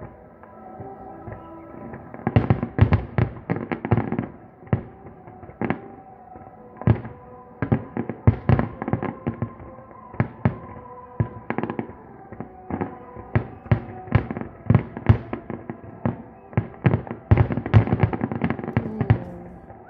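Aerial fireworks shells bursting one after another in uneven clusters of bangs, several a second at times, densest in the last few seconds.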